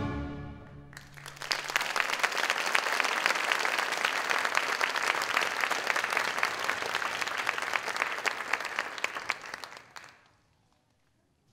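The final chord of the ballet music dies away, then an audience applauds for about nine seconds. The applause fades out shortly before the end.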